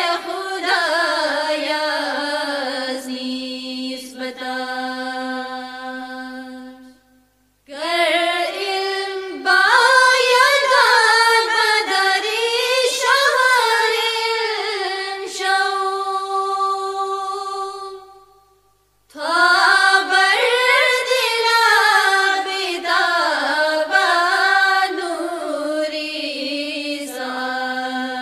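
A voice singing an Ismaili Farsi qasida in long, wavering phrases with sustained held notes. It breaks off twice briefly, about a quarter of the way in and about two thirds of the way in.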